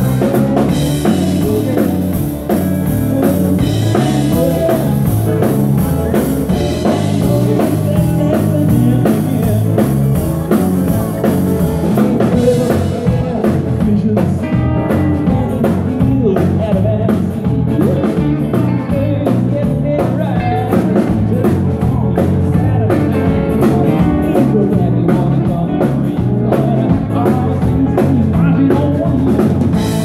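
Live band playing dance music, with drum kit and guitar.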